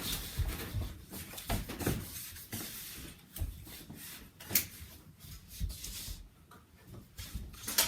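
Scattered light knocks and clicks, with one sharper click about halfway through.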